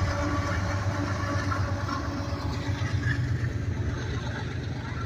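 Empty coal train rolling past, with the engine drone of a mid-train diesel locomotive (distributed power unit). The drone fades about two seconds in, leaving the steady low rumble of the cars.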